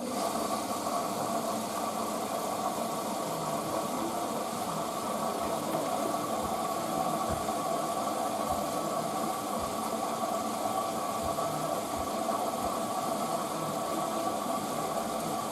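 Hoover DYN9144D3X washing machine starting its Colours 40 cycle: a steady mechanical hum with a hiss over it, which cuts in suddenly.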